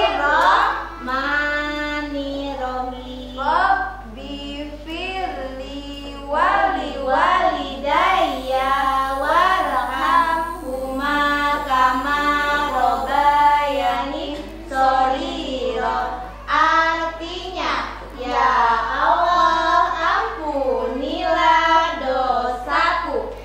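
A young child singing a simple sing-song melody in short phrases with brief pauses between them, a woman's voice joining in at times.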